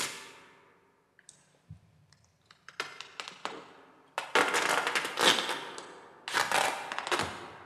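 Tape pulled off a roll in long crackling rips as it is wound around a bound figure's ankles: several rips in a row in the second half, after a few light clicks and handling rustles.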